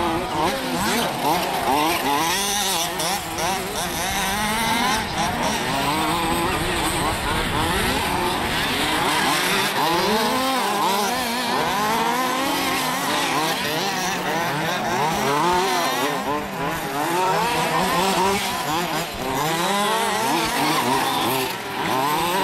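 Several large-scale RC off-road buggies' small two-stroke petrol engines racing at once, each one's pitch constantly rising and falling as the drivers rev and back off through the corners and jumps.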